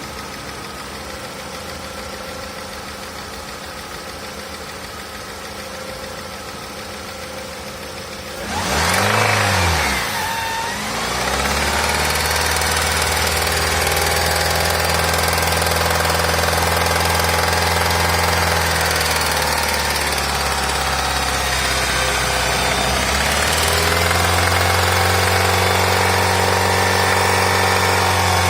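Nissan X-Trail T30 engine idling, then revved once about nine seconds in and held at higher speeds, with a dip in speed partway through and a step back up near the end. The engine knocks at around 1,000, 2,000 and 3,000 rpm, a knock that appeared after it was driven a few hundred kilometres with only a third of its oil, often on the rev limiter.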